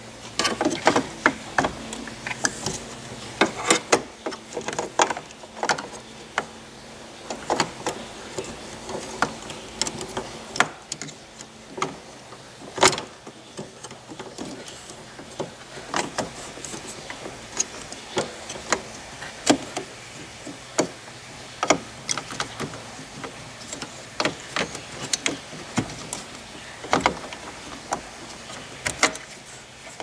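Hands handling the plastic cable spool and tensioner parts of a Honda Odyssey power sliding door drive: irregular clicks, taps and small knocks, some sharp, with short pauses between them.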